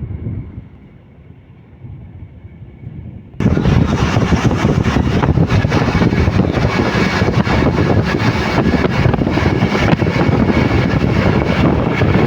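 Steady noise of a vehicle on the move with wind buffeting the microphone, jumping suddenly much louder about three seconds in.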